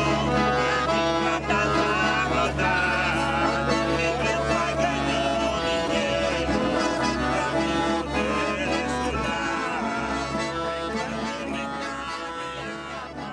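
Accordions and an acoustic guitar playing, with a man and a woman singing along. The music slowly fades near the end.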